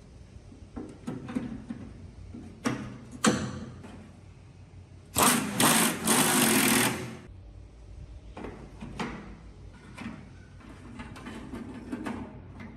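A small electric power tool motor runs for about two seconds, stopping and starting briefly at first, among scattered clicks and knocks of parts being handled.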